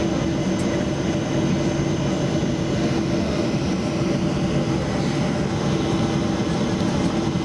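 Boeing 737-800's CFM56-7B jet engines running steadily at low taxi power, heard inside the cabin over the wing: a steady rumble with a held hum and a thin high whine.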